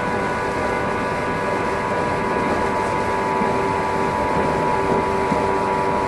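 A JR 115 series electric train's motor car running at a steady speed, heard from inside the car: a constant rumble of wheels on the rails, with a steady whine from the traction motors and gearing.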